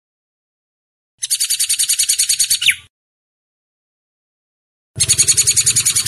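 Hair-crested drongo calling: two bursts of rapid, high-pitched chattering notes, about ten a second and each lasting a second or more, with a pause of about two seconds between them. The first burst ends with a quick downward-sliding note.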